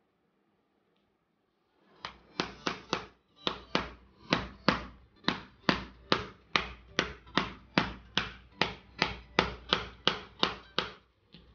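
A small plastic-tipped hammer tapping the centre of a laptop power adapter's plastic case again and again, to crack the glued seam. The sharp taps start about two seconds in and go on at about three a second until near the end.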